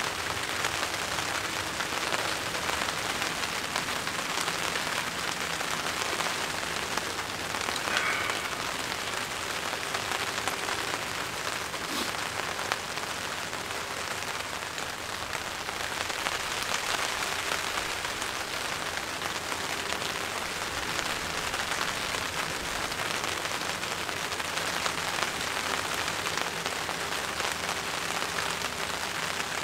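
Steady rain pattering on a plastic tarp overhead, an even patter with one brief click about twelve seconds in.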